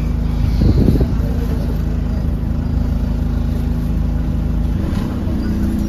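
Diesel bus engine running with a steady low drone, heard from inside the passenger saloon. There is a loud low thump just under a second in, and the engine note rises slightly near the end.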